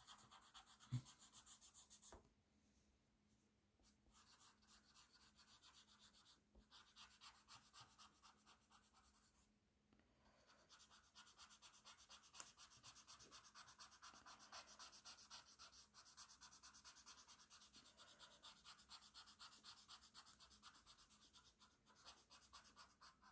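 Faint rubbing of a paper blending stump worked over pastel pencil on drawing paper, in quick repeated strokes that stop briefly twice.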